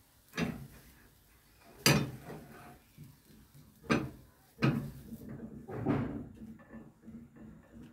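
About five sharp knocks and clatters of kitchenware spread over several seconds: a nonstick frying pan and spatula knocking against a gas stove's grates as a crepe is lifted out onto a plate.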